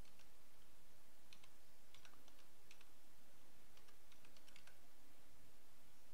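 Computer keyboard being typed on: faint single keystroke clicks coming at an irregular pace, over a steady background hiss.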